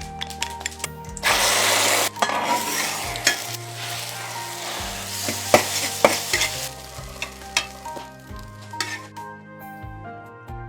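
Food frying in a hot pan: a loud burst of sizzling about a second in, as something goes into the hot oil, then steady sizzling with sharp clicks of a utensil being stirred against the pan, fading out after about six seconds. Soft background music plays throughout.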